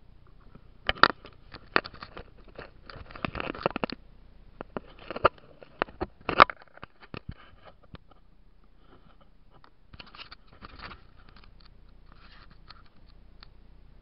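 Close scratching, scraping and sharp clicking of an action camera being handled and repositioned on a kayak, in irregular bursts for the first several seconds, with a softer bout of scraping about ten seconds in.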